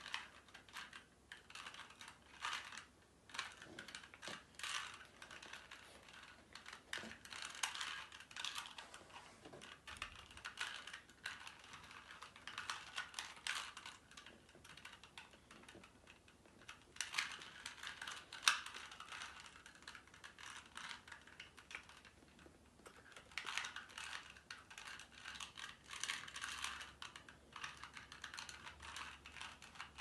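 A plastic 2x2 Rubik's cube being turned by hand: quick runs of clicking and clattering as the layers snap round, with short pauses between the runs.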